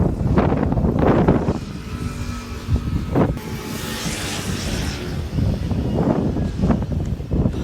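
Outdoor street ambience: road traffic going by, with one motor vehicle's engine heard steadily from about two seconds in, over gusty low rumble from wind buffeting the phone microphone.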